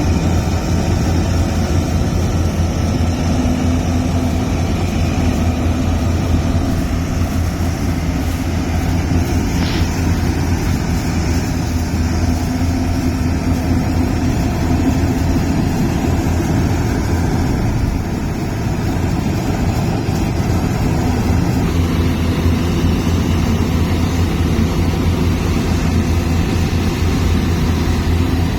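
Yanmar rice combine harvester's diesel engine running steadily, loud and continuous, with a brief click about ten seconds in and a slight change in its tone a little past twenty seconds.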